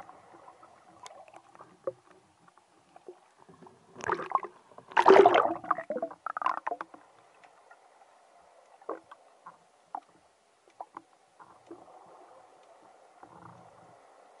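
Water heard through an underwater camera: a faint steady hiss with scattered small ticks, and a loud rush of splashing and gurgling about four to six seconds in as the spearfishing diver comes up to the surface.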